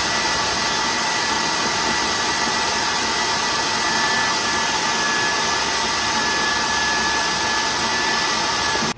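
Electric food processor (chopper) running steadily, grinding cooked meat and chana dal into kebab paste: an even motor whir with a steady high whine, cutting off just before the end.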